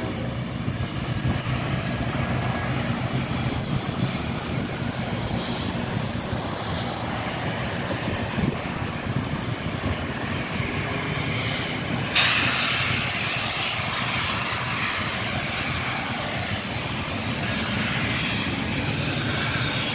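Passing excursion train: a steady low rumble of the train rolling slowly by, with a sudden hiss about twelve seconds in.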